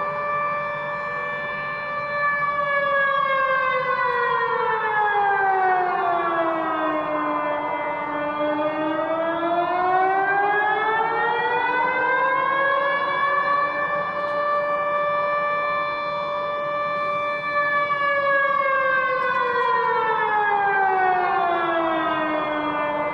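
Civil defense siren wailing in slow sweeps: the pitch holds high for a few seconds, glides down over several seconds, then climbs back up. It falls and rises twice, about twelve seconds a cycle.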